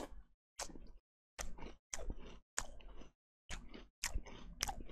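Close-miked chewing of a mouthful of CinnaGraham Toast Crunch cereal in milk: about eight short crunching chews, each cut off sharply by a moment of silence.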